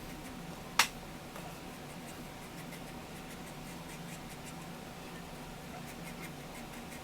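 Faint light scratching and dabbing of a cotton swab wetting the paper cone surround of a radio speaker, over a steady low hum and hiss. A single sharp click comes about a second in, and a few faint ticks near the end.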